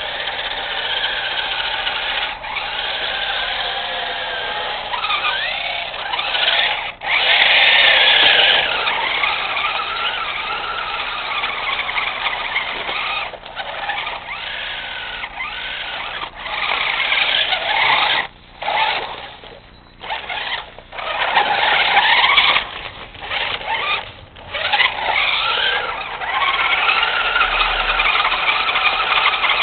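Tyco Rampage radio-controlled toy truck's electric motor and gears whining as it drives through snow, the pitch rising and falling with the throttle. The whine cuts out briefly several times in the second half as the truck stops and starts.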